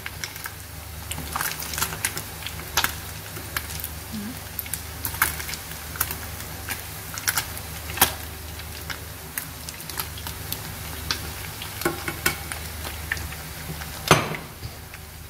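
Battered grass carp pieces deep-frying in hot oil: a steady sizzle dotted with many sharp crackles and clicks as chopsticks turn the pieces. The loudest knock comes near the end.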